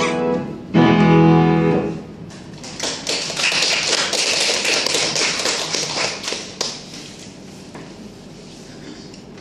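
Sung soprano line fading as the song ends, then a final piano chord struck about a second in and held for about a second. A few seconds of clapping from a small audience follow and die away.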